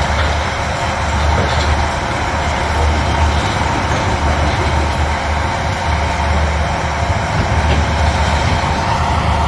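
Demolition machinery working: the steady low diesel rumble of a high-reach demolition excavator, under a constant broad hiss from the site's water dust-suppression spray.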